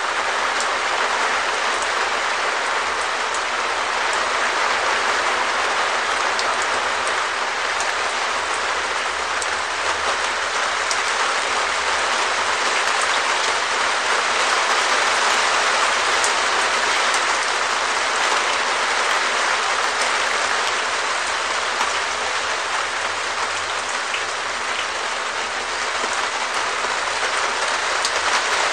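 Steady rain falling on a perspex shed roof: a dense, even patter with individual sharper drop hits standing out here and there.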